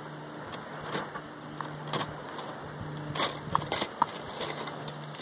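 Scattered sharp crackles and clicks over a steady low hum, in the open near active lava flows and fountains. The crackling fits a cooling lava crust cracking; the hum's source is not shown.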